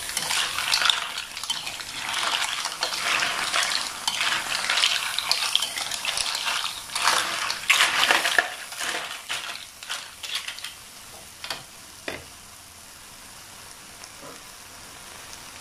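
A metal spatula stirs and tosses small mussels in their shells around an aluminium wok as they fry: shells rattling and clattering and the spatula scraping, over sizzling. The stirring thins to a few knocks about nine seconds in and stops, leaving a quieter steady sizzle.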